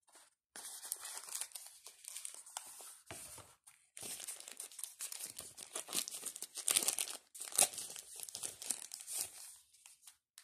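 Thin clear plastic bag crinkling and crackling as it is handled and pulled open, with a short pause just before four seconds in.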